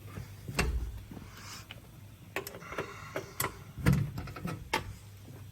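Clicks, knocks and a brief rattle of a KAESER screw compressor's sheet-metal enclosure panels being unlatched and opened while the machine is switched off.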